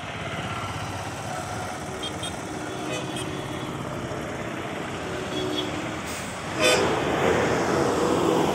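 Road traffic going past, with a vehicle horn tooting in short pips a couple of seconds in and one brief louder honk about two-thirds of the way through, after which a vehicle passes louder and closer.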